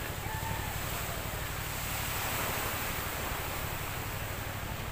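Steady rushing of wind and surf, with wind rumbling on the microphone; it swells a little in the middle.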